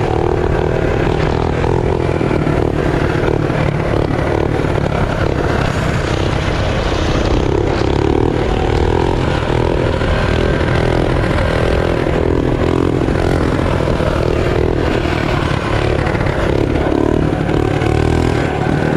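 Mini bike engine running while being ridden, its pitch rising and falling as the throttle opens and closes.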